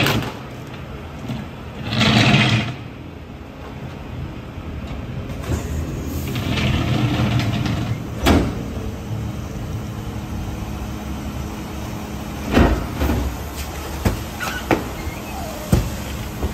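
Rear-loader garbage truck's diesel engine running while its hydraulic packer blade cycles through the hopper, compacting trash bags. A short noisy burst about two seconds in, then several sharp metallic clanks in the second half.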